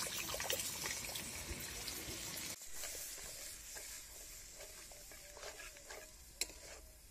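Coconut milk poured into frying spice paste in an aluminium karahi: a liquid hiss and splash that stops abruptly about two and a half seconds in. Then quieter stirring with a spatula, with faint scrapes and clicks.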